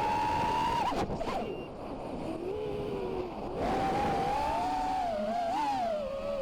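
Eachine Wizard X220 FPV racing quadcopter's brushless motors whining, the pitch rising steadily under throttle. About a second in, the pitch drops away sharply as the throttle is cut. Two or three seconds later the whine comes back and wavers up and down with the throttle.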